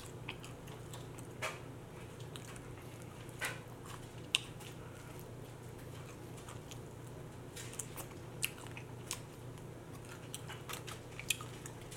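Close-miked eating of chicken wings: scattered short, sharp mouth smacks and clicks of biting and chewing, over a faint steady low hum.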